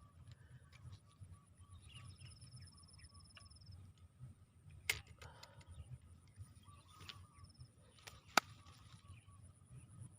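Rice-field ambience of steady, pulsing insect trills, broken by two sharp clicks about five and eight seconds in.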